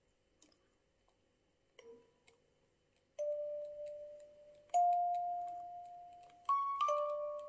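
Hand-crank music box movement on a small box, turned slowly: a couple of faint clicks, then from about three seconds in four single plucked comb notes of a slow melody, each ringing and fading before the next.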